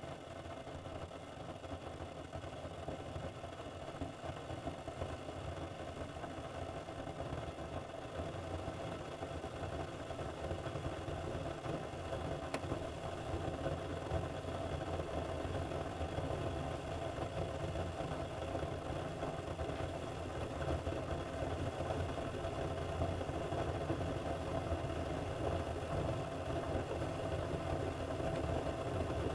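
Keurig single-serve coffee maker brewing: its pump running as a steady mechanical drone with a low rumble, growing gradually louder.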